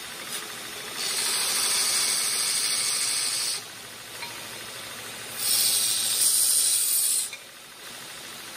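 Steady running noise of a DIY belt grinder with two bursts of high hiss, each about two to three seconds long, as metal is pressed against the belt.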